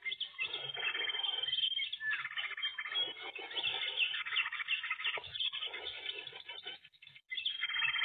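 Small songbirds chirping and chattering in dense bursts of quick, sweeping notes, with a short lull near the end before the chatter starts again.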